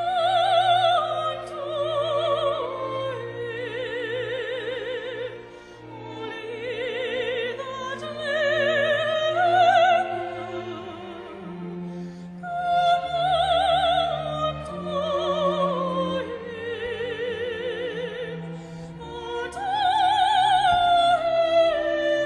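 A classical solo voice sings long, high held notes with wide vibrato in an operatic style. Sustained low string notes accompany it.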